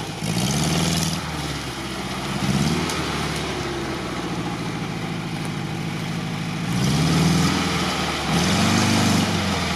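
ZAZ-968M Zaporozhets' air-cooled V4 engine revving up and back down in four short swells as the car crawls through brush, running steadier between the second and third.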